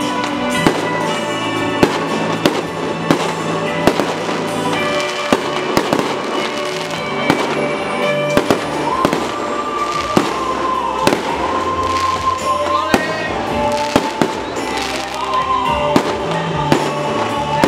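Fireworks bursting overhead: repeated sharp bangs and crackles, irregularly spaced about a second apart, with music playing loudly underneath.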